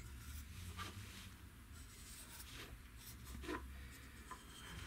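A marking tool scratching faintly on a thin steel strip in a few short strokes as a cutting line is traced onto it.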